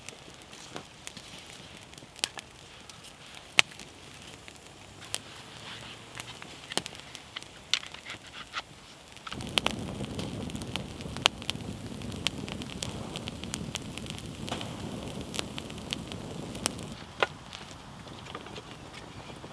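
Small twig campfire crackling, with sharp pops scattered throughout. From about nine to seventeen seconds in, a louder steady rush of burning flame runs underneath the pops.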